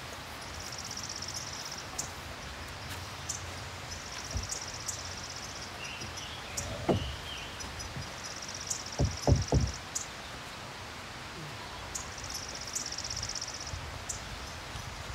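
Wooden lumber knocking on wood as boards and posts are handled at the deck edge: one knock about seven seconds in, then a quick run of three louder knocks about two seconds later. A high buzz comes and goes every few seconds in the background.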